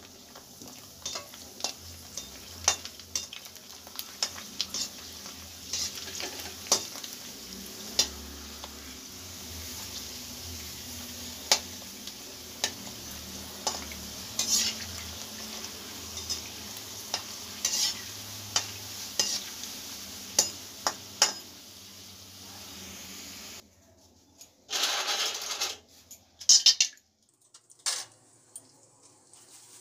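Golgappa puris deep-frying in hot oil in a steel kadhai: a steady sizzle with frequent sharp clinks of a steel ladle against the pan. Near the end the sizzle stops abruptly, then comes a short loud burst of sizzling and a few clinks as a fresh batch of flat dough discs goes into the oil.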